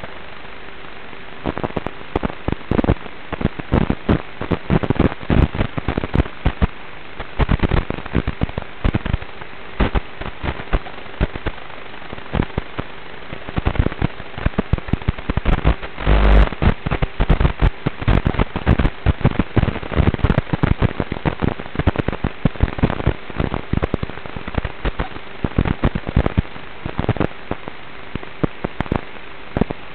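Traxxas Slash RC short-course truck running over a gravel dirt road, heard from its onboard camera: a dense, irregular clatter and crackle of the chassis and camera mount rattling and gravel striking the body, heaviest around the middle.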